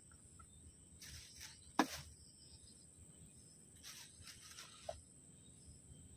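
Faint handling of plastic: two short spells of plastic-bag and container rustling, with a sharp plastic tap just before two seconds in as the loudest sound. Under it, a steady high-pitched insect drone.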